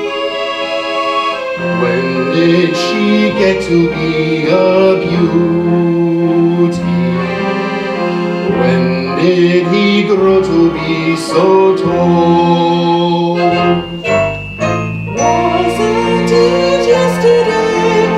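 A live musical-theatre pit band playing slow instrumental music: a melody over held chords, briefly thinning out about fourteen seconds in.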